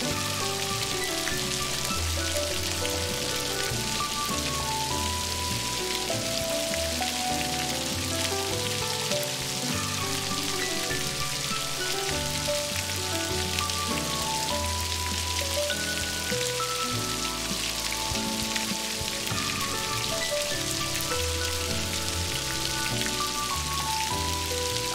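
Steady heavy rain falling on a surface, over soft, slow instrumental music with held notes.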